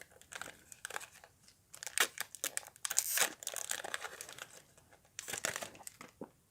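Foil wrapper of a Pokémon TCG booster pack crinkling and tearing as it is opened, in irregular crackly rustles that are loudest about two to three seconds in and again near the end.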